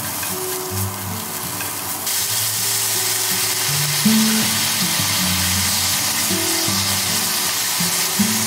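Julienned burdock root and carrot sizzling in sesame oil in a hot frying pan as they are stir-fried and seasoned; the sizzle grows louder about two seconds in and stays strong. Soft background music plays underneath.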